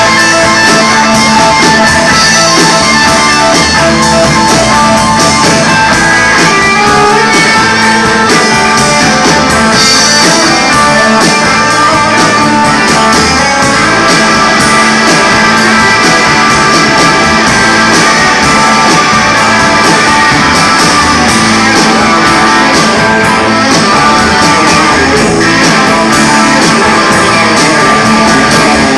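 A band playing live with electric guitar, loud and continuous.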